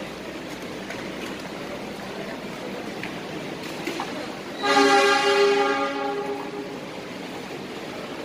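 A train horn blows once, starting about four and a half seconds in: one steady chord held for about two seconds, then fading. Under it runs the steady background noise of a railway platform.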